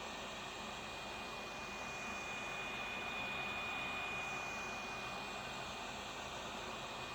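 Hot air rework station blowing steadily: a rushing of air with a thin high whine running through it, heating the edges of a phone's screen to soften the adhesive before prying it off.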